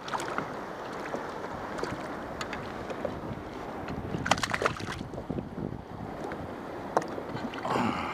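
Steady wind and water noise on a small fishing boat, with scattered light clicks and knocks, several close together a little past the middle.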